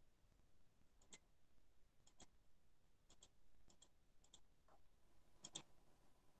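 Faint computer mouse clicks, mostly in quick pairs, about once a second, as slides are selected and switched.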